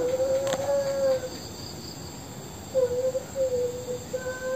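Crickets chirping steadily. Over them comes a drawn-out, wavering wail-like tone, once at the start and again for the last two seconds. A single click sounds about half a second in.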